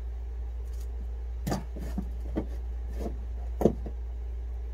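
A few light clicks and knocks, about five in a couple of seconds, from wiring and parts being handled, over a steady low hum.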